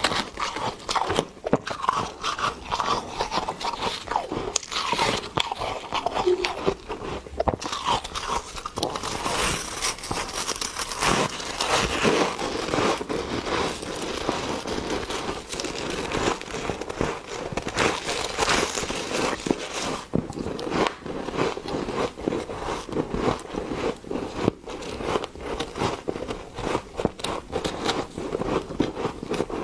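Close-miked biting and chewing of fluffy freezer frost and foam ice, a dense, continuous run of small crisp crunches and crackles.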